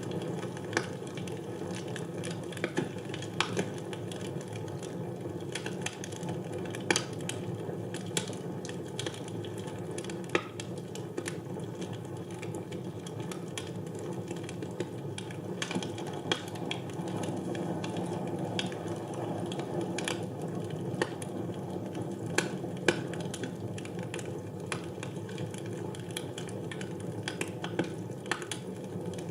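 Wood fire burning in a fireplace: irregular crackles and pops over a steady low rush of flame.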